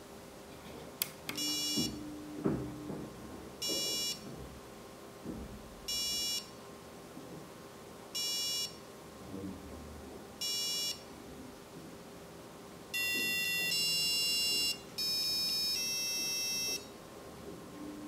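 Piezo whistle chip of a micro:bit countdown timer beeping: five short, high beeps about two seconds apart, one per count, then three longer tones in a row, the first lower and the last longest, sounding as the countdown runs out.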